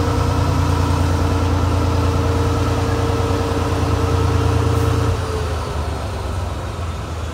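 NS 2400-class diesel locomotive passing close by with its engine working under load, a steady loud low drone. About five seconds in the engine note drops away and the sound fades as it moves off.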